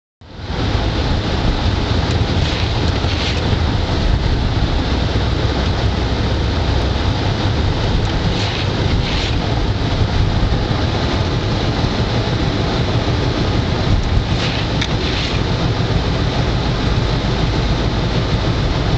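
Car driving on a snowy road: a steady low rumble of tyres and engine under an even rushing noise, with brief swishes in pairs about every six seconds.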